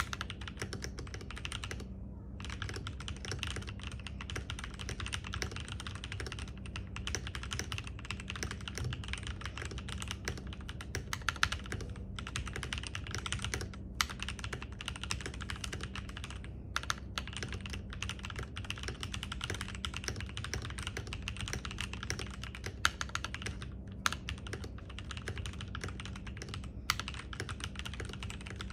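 Continuous fast typing on a Keydous NJ80 75% mechanical keyboard with lubed NovelKeys Cream linear switches on a brass plate in a plastic case. A dense run of key clicks is broken by a few short pauses, with occasional louder strokes.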